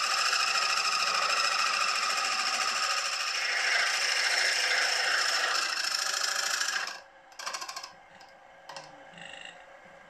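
Milling machine spindle turning a boring head in the cylinder bore of a model traction engine's cylinder block, boring it out to size: a steady machine sound with a fast rattle, cutting off about seven seconds in, followed by a few faint clicks.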